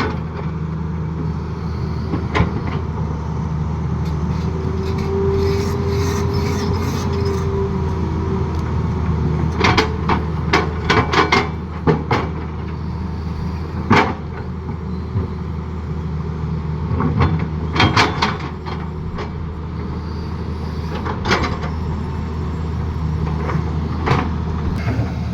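Excavator's diesel engine running steadily, with scattered sharp clanks and knocks of metal working, and a brief higher whine about five to seven seconds in.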